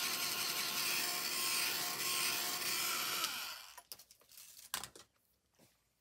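Handheld hot-air dryer blowing steadily with its fan motor whirring, drying ink on a paper journal page. About three seconds in it is switched off and the motor winds down, followed by a few light knocks.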